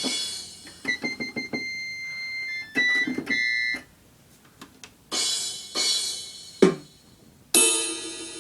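Electronic keyboard playing silly preset sounds: a quick run of short notes and held electronic tones, a pause, then several loud blasts of sound effects with a sharp hit about six and a half seconds in.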